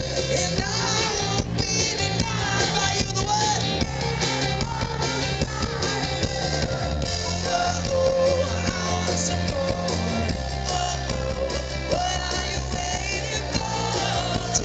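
Live rock band playing through an outdoor PA, heard from the audience: a male lead vocalist singing over electric guitars, bass guitar and drums.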